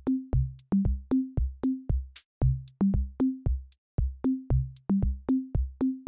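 Electronic background music: a drum-machine beat of short, low bass-drum hits with sharp clicks on top, about three to four a second.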